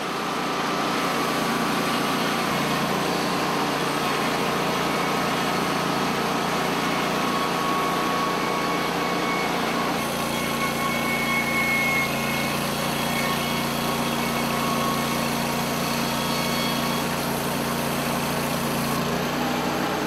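Norwood portable band sawmill running, its engine and band saw head holding a steady drone. The tone shifts slightly about halfway through.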